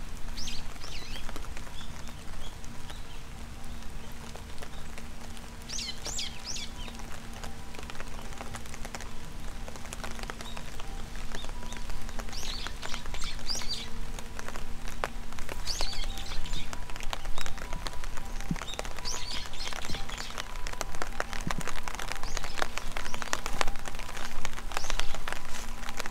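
Small birds chirping in short high bursts every few seconds over steady rain, with sharp raindrop ticks close by that grow thicker toward the end. A faint steady hum lies underneath.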